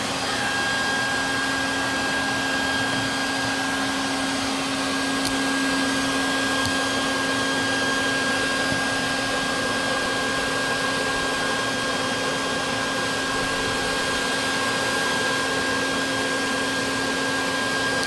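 Vacuum cleaner running steadily, a constant low hum with a thin high whine over it, its nozzle sealed in a hole behind an above-ground pool liner to suck out the air and pull the liner's wrinkles flat.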